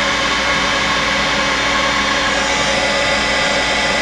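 Heat gun blowing a steady hiss of hot air, shrinking heat-shrink tubing over a freshly soldered wire joint.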